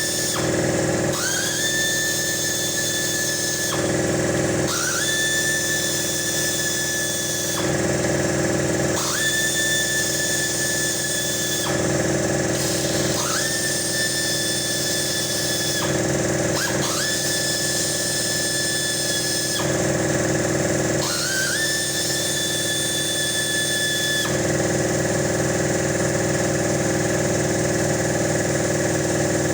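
Small electric motor whining in about seven runs of two to three seconds each, each quickly rising to a steady pitch, over a steady low hum.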